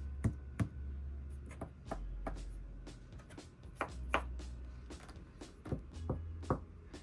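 Scattered light taps and clicks at irregular intervals, over a low hum that comes and goes.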